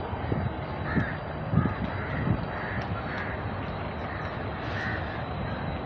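Crows cawing repeatedly, a short call every half second to a second, over steady background noise, with a few dull thumps in the first couple of seconds.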